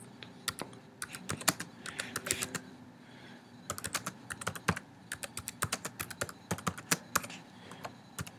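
Computer keyboard keys clicking in quick, irregular runs as a short line of text is typed, with a brief pause about three seconds in.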